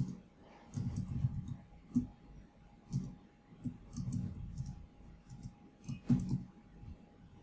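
Computer keyboard keys clicking as someone types, in short irregular clusters of keystrokes.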